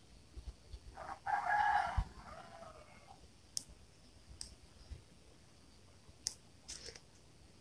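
A rooster crowing once, about a second in, lasting roughly two seconds and trailing off lower at the end, followed by a few sharp clicks spread over the following seconds.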